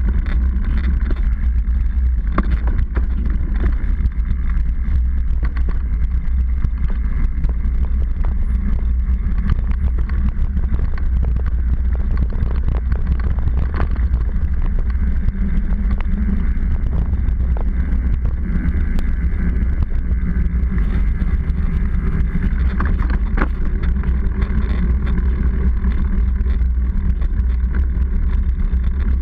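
Steady low rumble of a mountain bike's knobby tyres rolling on a concrete road and wind buffeting a seatpost-mounted action camera, with scattered short rattles and knocks as the bike and camera mount jolt over the surface.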